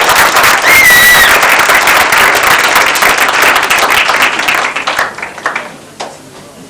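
Audience clapping, with a brief high whistle about a second in. The applause fades away near the end.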